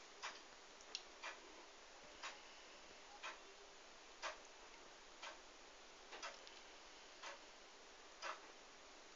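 A clock ticking faintly and evenly, once a second.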